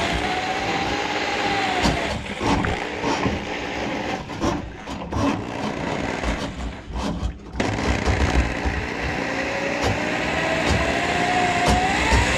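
Handheld electric drum drain auger running, its motor whining over the rattle of the spinning cable in a kitchen sink drain clogged with grease. The sound breaks off and starts again several times in the middle, and from about eight seconds in the motor runs steadily, its whine rising in pitch.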